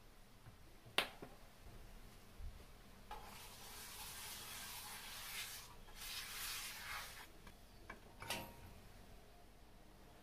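Hot oiled nonstick frying pan hissing in two stretches, a few seconds long. There is a sharp click about a second in, and a couple of knocks near the end as the pan is handled and set down.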